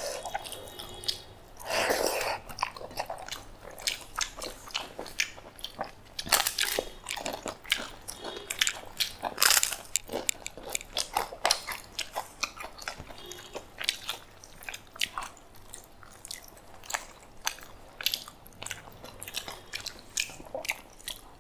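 Close-up eating sounds: mouth chewing and biting with many short crunchy, crackly clicks, scattered irregularly throughout.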